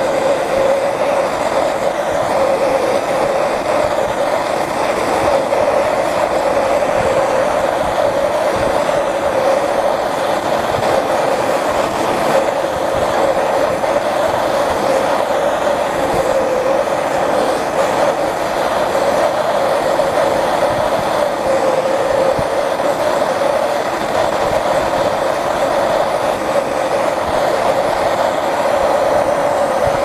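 Bernzomatic hand torch burning with a steady, unbroken hiss, its flame held on a refrigerator evaporator's solder joint to melt it out. The solder does not give way under this torch.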